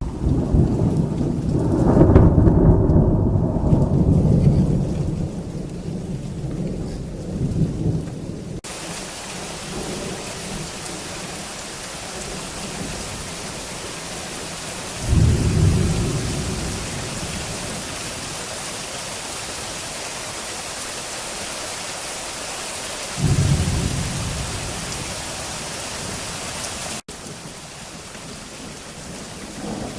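Thunder during a violent storm: a long low rolling rumble for the first eight seconds or so, then heavy rain falling in a steady hiss, with two shorter thunderclaps breaking in about fifteen and twenty-three seconds in.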